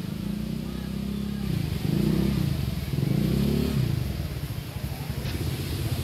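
Motorcycle engine running on the street, revving up and easing off twice.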